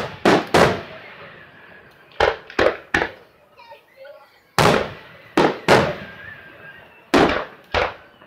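Aerial fireworks shells bursting: about ten sharp, loud bangs in irregular groups of two or three, each trailing off in an echo.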